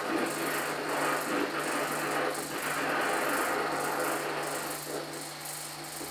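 Old newsreel film soundtrack: a steady, dense din under a constant low hum, without distinct bangs.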